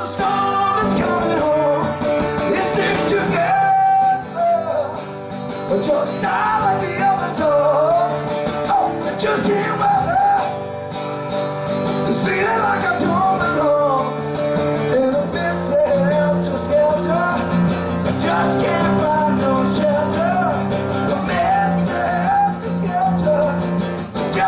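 A man singing a song live while strumming an acoustic guitar.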